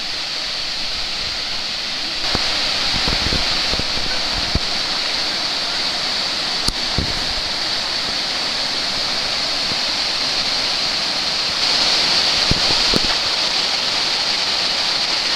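Steady rushing of a waterfall and its rocky creek, growing louder about two seconds in and again near twelve seconds as the falls come closer, with a few faint knocks.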